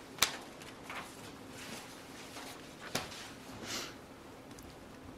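Quiet room with a faint steady hum, broken by two short sharp clicks, one just after the start and one about three seconds in, with soft rustling in between, like small handling noises at a lectern.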